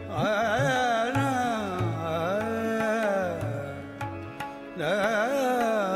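Background music in an Indian classical style: a gliding, ornamented melody over a steady drone, with a few light drum strokes.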